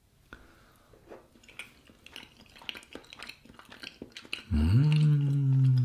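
A man chewing a bite of cheese, with faint scattered mouth clicks. Then comes a long hummed "mmm" of approval near the end, rising a little and then held on one steady pitch for about a second and a half.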